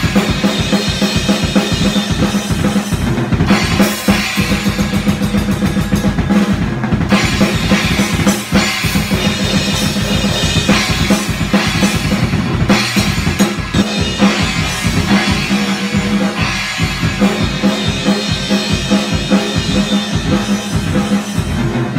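Drum kit played fast: rapid bass drum strokes under snare hits and the wash of Sabian cymbals, in a continuous driving pattern.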